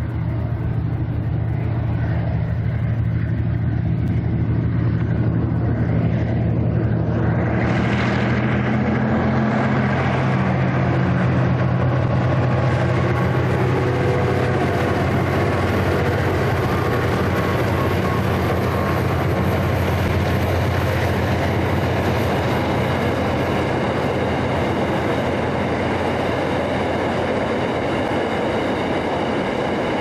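Two diesel locomotives hauling an empty iron ore train, their engines running with a steady low drone as they come on and pass. After about the first third, wheel and rail noise from the passing hopper wagons builds up, a rumble with a thin high ringing, and it runs on as the empty wagons roll by.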